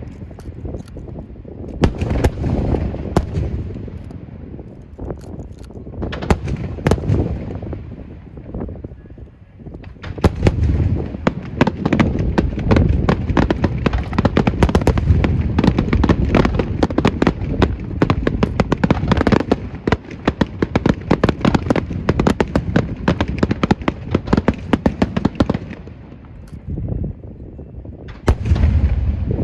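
Fireworks going off: volleys of sharp bangs and crackles, with a few separate bursts early on, a long dense barrage from about ten seconds in to twenty-six seconds, and one more burst near the end.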